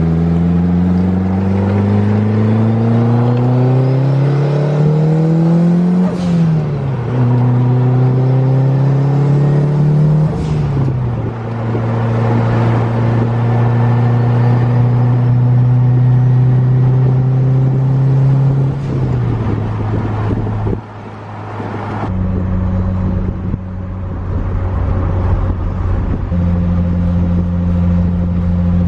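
Turbocharged 4G63 inline-four in a 500 hp Eagle Talon, pulling through the gears. The revs climb and drop with a shift about six seconds in and again about eleven seconds in, then hold a steady cruise. Around nineteen to twenty-two seconds in the revs fall away, and the engine settles to a low, steady run.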